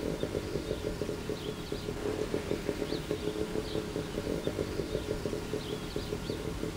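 An engine running steadily with a fast-pulsing low hum, with small birds chirping now and then above it.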